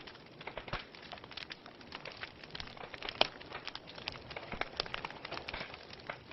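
Wood fire crackling in a fireplace: irregular snaps and pops over a soft hiss, with one sharper pop about three seconds in.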